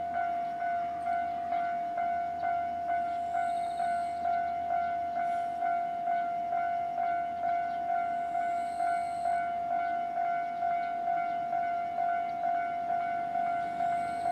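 Japanese railway level crossing's warning bell ringing, an even repeated clang of one pitch, somewhat under two strikes a second: the crossing is closed for an approaching train.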